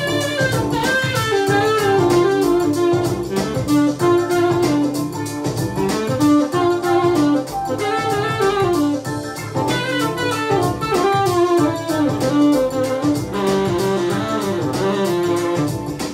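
Tenor saxophone playing a melodic funk line with pitch bends, over a backing track with a steady drum-machine beat and bass.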